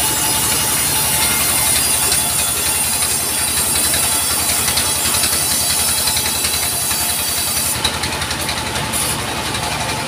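Engine-driven vertical band sawmill running steadily, its engine giving an even low pulsing under the hiss of the band blade ripping a log lengthwise. The highest part of the hiss thins out about eight seconds in.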